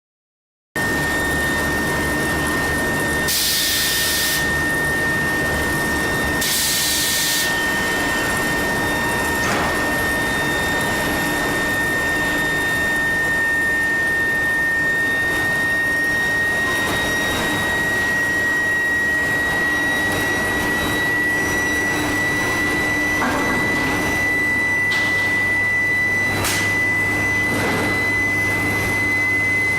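Induction billet heating furnace running: a steady high-pitched whine that slowly rises a little in pitch, over a low machine hum. Two short hissing bursts come early on, and a few sharp clicks come later.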